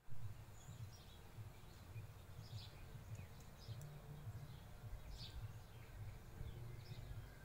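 Faint bird chirps: short, high, falling calls every second or so over a steady low rumble.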